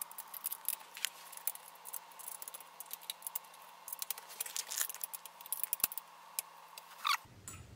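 Quiet, irregular metallic clicks and ticks of an Allen key turning screws into the steel leg bracket of a bed frame.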